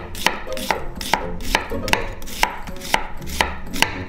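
Kitchen knife slicing half an onion on a wooden cutting board: quick, even chops, about four to five a second.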